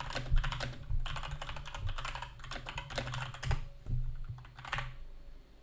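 Typing on a computer keyboard: a quick run of key clicks that stops about five seconds in.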